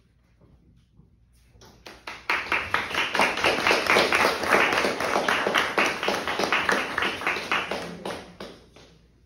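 A small audience applauding, beginning about a second and a half in and dying away near the end.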